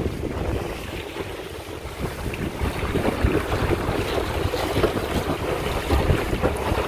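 Gusty wind buffeting the microphone over the rush and slap of lake water along the hull of a small sailboat under sail.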